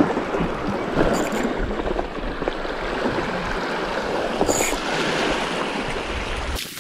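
Small waves washing and lapping against a rocky shoreline: a steady rushing, splashing noise.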